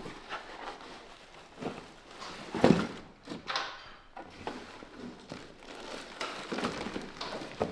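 Packaging rustling and parts knocking as a box of new motorcycle exhaust parts is unpacked, with one louder thunk about two and a half seconds in.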